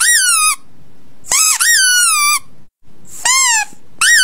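Pug puppy crying in high-pitched squeals, about once a second. Each squeal rises sharply and then slides down in pitch.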